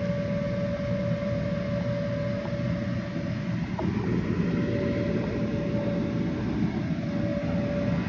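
Electric inflatable blower running steadily: a continuous rushing hum with a constant whine on top, as it fills a bounce house combo with air.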